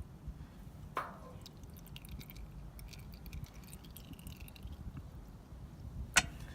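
The last engine oil dripping from a generator's drain into a catch pan as the generator is tilted: faint, irregular drips. A short knock comes about a second in and a sharper, louder knock near the end.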